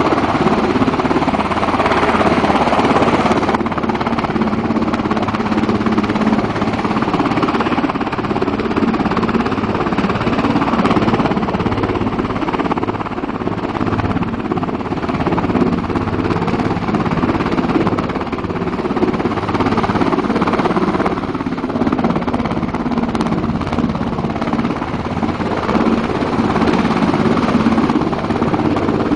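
Coast Guard MH-60 Jayhawk helicopter hovering low over water: a loud, steady drone of rotor and turbine noise with no let-up.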